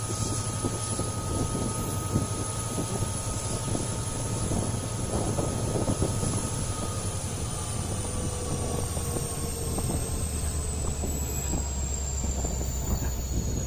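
EMD WDP4D diesel locomotive humming steadily ahead of the coaches, with wheels clicking over the rails. About eight seconds in the engine's drone drops lower, and a thin high whine slowly falls in pitch.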